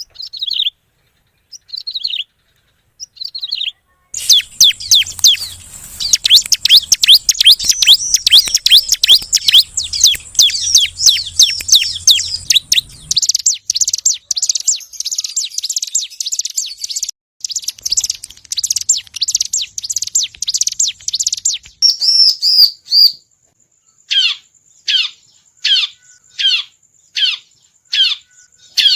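Ciblek (prinia) song: a few single high, downward-slurred notes, then from about four seconds a long, fast, dense chattering run of such notes with short breaks, and near the end spaced single notes falling steeply in pitch, about one every three-quarters of a second. It is a lure recording used to draw in wild ciblek.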